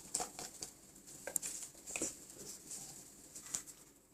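Soft, scattered taps and rustles of small objects being handled, in irregular short clicks.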